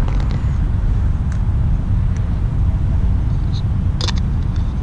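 Steady low outdoor rumble of road traffic and wind, with a few light clicks, the sharpest about four seconds in.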